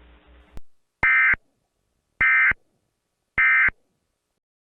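Three short, identical bursts of warbling Emergency Alert System (SAME) digital data tones, about a second apart: the end-of-message code that closes an EAS alert.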